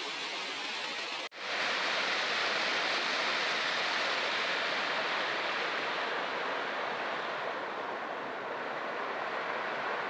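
Steady rush of a waterfall and its stream cascading over rocks into pools. About a second in, the sound cuts out for an instant and comes back a little louder.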